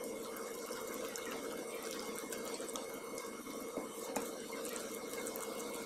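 Silicone balloon whisk stirring a wet flour-and-water batter in a bowl: a soft, steady wet stirring sound with small clicks of the whisk against the bowl.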